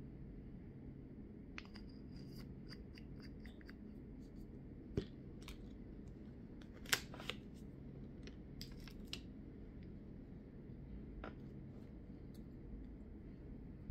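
Light clicks and taps of small glass nail polish bottles and stamping tools being handled and set down on a table, with a quick run of soft ticks about two seconds in and sharper knocks about five and seven seconds in, over a faint low hum.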